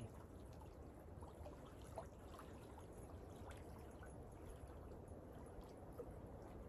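Small waves lapping faintly at a lake's shore: a soft, steady wash with a few light ticks.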